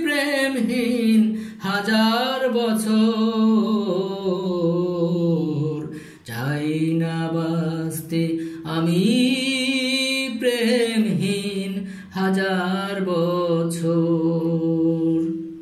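A solo singing voice holding long, wavering notes with vibrato in several phrases, with short breaks between them. It dies away near the end.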